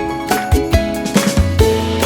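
Upbeat background music with plucked-string notes over a steady beat of about two strikes a second.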